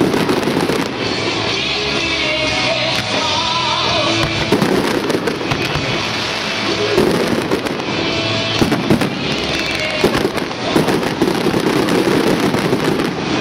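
Fireworks display in a dense barrage: aerial shells bursting in rapid, overlapping bangs and crackle, with music playing under the show.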